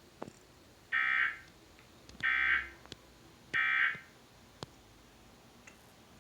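Emergency Alert System end-of-message data bursts: three short, harsh, buzzing digital tones a little over a second apart, signalling the end of the required monthly test alert.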